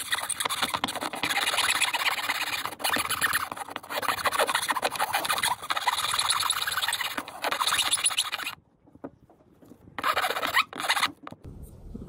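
Steel hand file rasping back and forth in a drilled-out slot, filing the rough edges smooth, in a series of strokes about every second and a half. It stops about eight and a half seconds in, then one more short burst of filing comes near the end.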